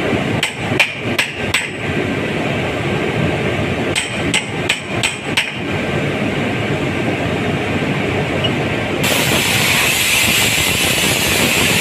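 Hammering on a metal bar driven against the jammed impeller of a rotary cement packer, trying to knock loose a bolt stuck in it. Two quick series of about five sharp metallic strikes, over steady plant machinery noise. Near the end a louder steady hiss sets in.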